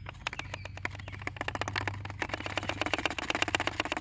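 Bottle of TireJect tire sealant being shaken and emptied into an ATV tyre, the liquid sloshing and gurgling in a fast run of crackly ticks that grows louder toward the end.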